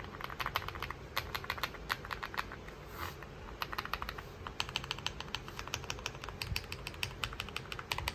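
Typing on an Aula F75 mechanical keyboard with Leobog Star Vector switches: fast runs of keystroke clacks, with a sparser stretch of about two seconds near the middle.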